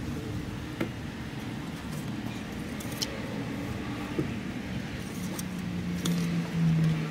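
A steady low motor hum that grows louder near the end, with a few light clicks and knocks as a plastic oil funnel is handled.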